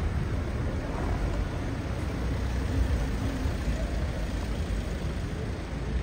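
City street traffic noise, steady and low-pitched, as a small car drives past close by.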